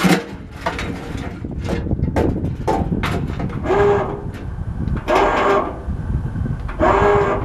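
Bumper-mounted electric winch, run off the truck battery, pulling a chain in repeated short bursts of under a second each. Its motor strains and stalls under the weight of the air-compressor head. Sharp knocks and clanks come in the first few seconds.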